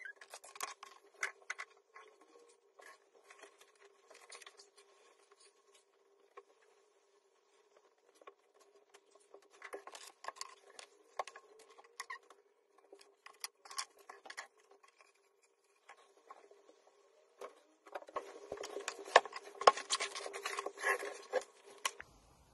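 Rustling, scraping and light clicks of belongings being handled and packed into a bag, busiest near the end, over a faint steady hum.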